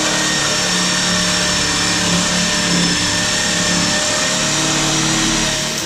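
Electric power tool motor running at a steady high speed for several seconds, then cutting off near the end.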